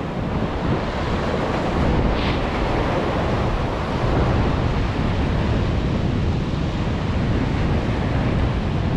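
Sea surf washing and surging among the concrete tetrapods of a breakwater, with wind buffeting the microphone: a steady, dense rush of noise.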